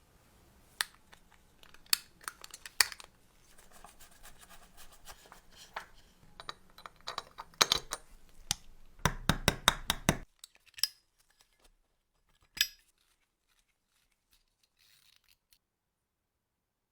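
Small hard parts and hand tools being handled at a workbench: scattered sharp clicks, clinks and scrapes, with a dense run of clicks about nine to ten seconds in, a few single clicks after it, and then it falls quiet.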